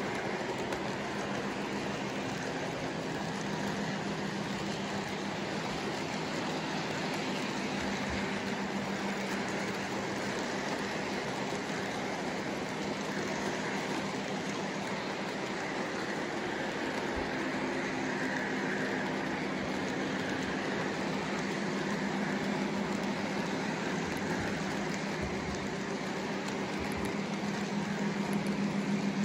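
Lionel O-gauge model freight cars rolling past on the track: a steady rolling rumble of metal wheels with a constant low hum, growing a little louder near the end.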